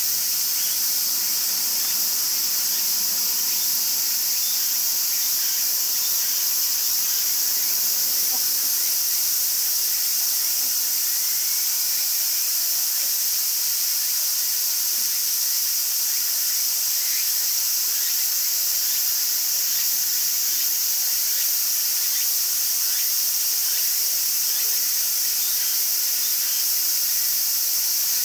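A chorus of cicadas buzzing in a steady, high-pitched drone that never lets up.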